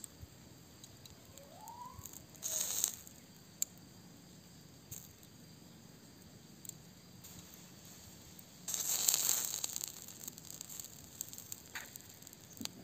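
Charcoal embers under a spit-roasting whole chicken: faint crackling with scattered ticks, and two short hissing sizzles, one about two and a half seconds in and a longer one about nine seconds in.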